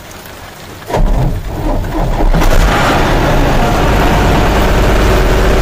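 Tata truck's diesel engine cranked by the starter about a second in, catching and, from about halfway through, running steadily.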